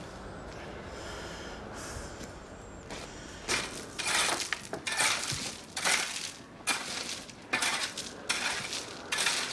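A garden rake dragged through stony gravel in repeated scraping strokes, about one a second, starting some three and a half seconds in.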